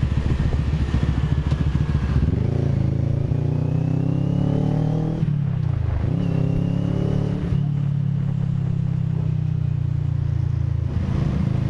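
Motorcycle engine under way. It runs steady, then the revs rise for about three seconds, drop briefly at a gear change about five and a half seconds in, rise again and settle into a steady run.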